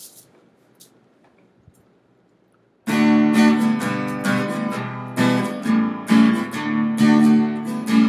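Acoustic guitar. After a few seconds of near quiet with a couple of faint clicks, strummed chords start abruptly about three seconds in and carry on rhythmically as a song intro.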